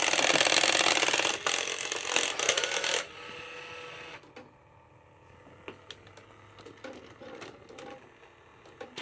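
Robosapien V2 toy robot starting up: a loud buzzy mechanical whir of its gear motors for about three seconds that stops abruptly, then faint servo whirs and scattered clicks.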